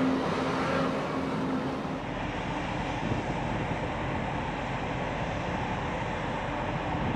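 Steady rushing and splashing of water pouring from an outlet in a ship's hull into a canal lock chamber, over a low hum.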